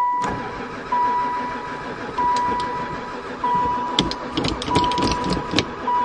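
Starter motor cranking a Chrysler-built van's engine, which turns over but never fires: the owner suspects it has no spark. A dash warning chime repeats about once every 1.3 seconds over the cranking.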